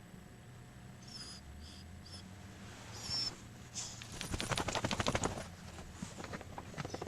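A dog whining in short, high-pitched cries, several in the first few seconds, then a rapid run of clicking and scraping about four seconds in, the loudest part.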